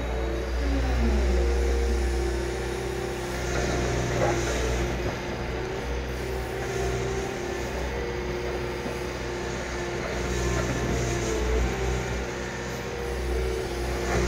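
Liebherr R 938 crawler excavator running: a steady low diesel engine hum with whining tones over it as the machine slews round and digs with its bucket, one tone sliding down in pitch about a second in.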